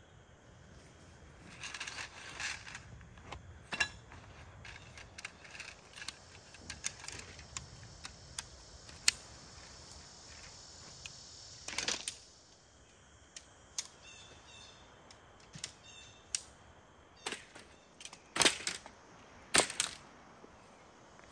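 Irregular clicks, taps and rustling from gear being handled, a few with a brief metallic ring. The sharpest clicks come near the end.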